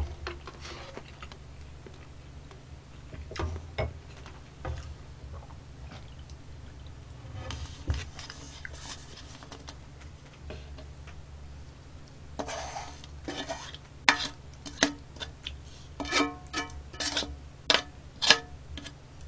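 A wooden spoon scraping and knocking against a metal pan as the last of a stew is scraped out into a bowl, in scattered light clicks with a few short scrapes.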